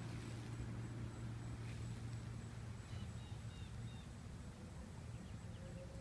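Ducklings peeping faintly: a quick run of about four short high peeps near the middle and a few fainter ones near the end, over a steady low hum.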